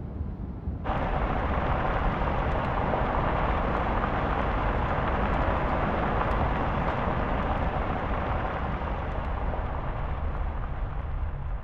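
A car speeding along a road: a steady rush of tyre and wind noise over a low rumble, which comes in suddenly about a second in.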